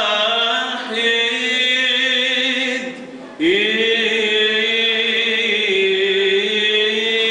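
A man's voice chanting in Byzantine style, drawing out long held notes that glide between pitches, with a short break about three seconds in before the next long note.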